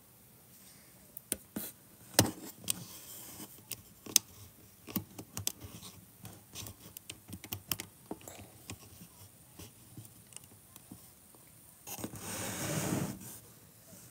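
Irregular clicks, taps and scrapes of a phone being handled close to its microphone, then about a second of rustling noise near the end.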